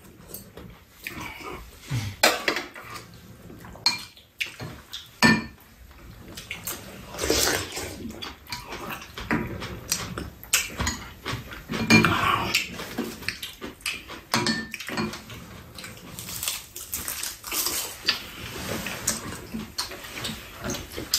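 Spoons and chopsticks clicking and scraping against ceramic bowls during a meal of bean-sprout egg soup, with short bouts of slurping and chewing between the clinks.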